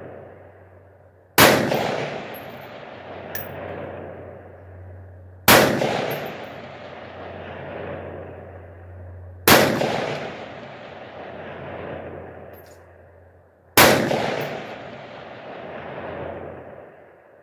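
Four AR-15 rifle shots, about four seconds apart. Each crack is followed by a long rolling echo that fades over a few seconds.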